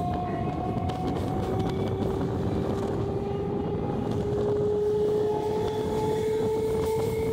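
Electric multiple unit (EMU) suburban train running, with a steady rumble of wheels on rail and a whine from the traction motors that rises slowly in pitch as the train gathers speed.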